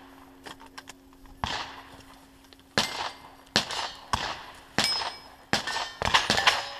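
Rifle shots fired in quick succession at steel targets: about ten sharp cracks, roughly half a second to a second apart and bunching closer near the end. At least one is followed by a brief ring from struck steel.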